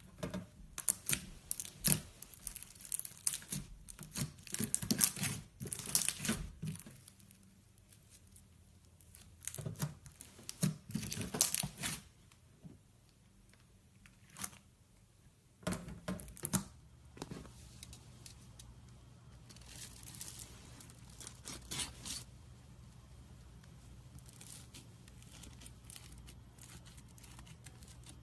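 Slime being squeezed, poked and stretched by hand, giving clusters of crackling and popping sounds, with quieter, softer handling in the later part.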